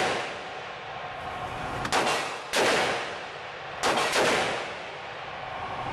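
Four gunshots on a shooting range, in two close pairs about a second and a half apart, each followed by an echoing tail.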